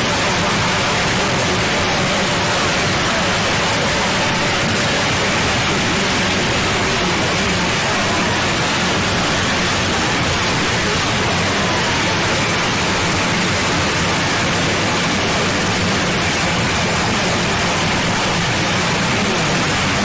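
Loud, steady hiss of noise, like static, spread evenly from low to high pitches with no change.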